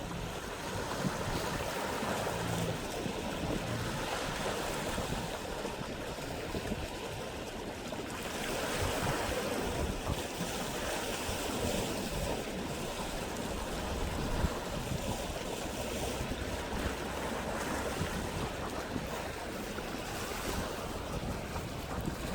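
Sea waves washing against the shore in a steady wash that swells a little partway through, with wind buffeting the microphone.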